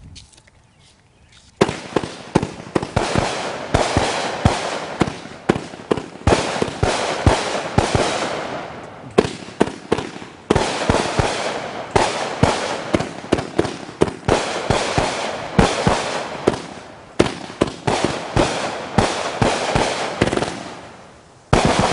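Multi-shot consumer firework cake ("Meet Your Maker") firing shot after shot in quick succession, starting about a second and a half in. Sharp launch pops and bursts ring out over a continuous crackling hiss for about twenty seconds.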